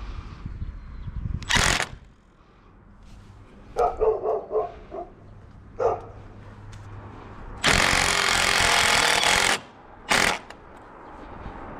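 Ryobi cordless impact driver running in bursts, driving tapping screws into the joint of a Yagi antenna's boom to refasten it: a short burst about a second and a half in, a run of about two seconds later on, and a brief burst just after. A dog barks several times in between.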